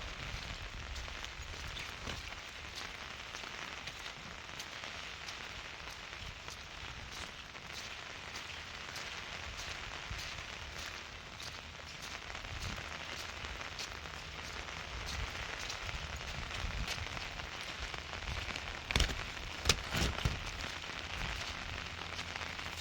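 Steady rain falling, with many small drop hits and a few sharper clicks near the end.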